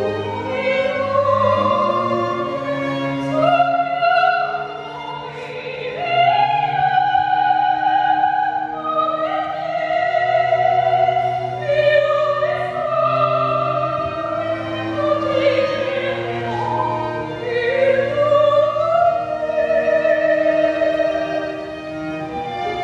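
An operatic singer sings a slow aria-like melody in long held notes with vibrato, over a lower instrumental accompaniment.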